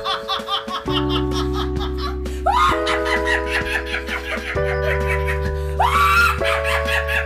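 A woman laughing heartily in repeated bursts over background music of held chords that change about every two seconds.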